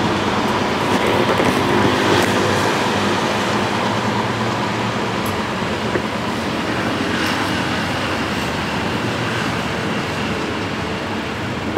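Steady engine and road noise from riding in the back of a moving songthaew (baht bus), the pickup-truck taxi.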